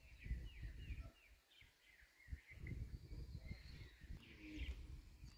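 Birds chirping faintly: a run of short, falling calls repeated a few times a second, with a thinner, higher call later on, over an intermittent low rumble.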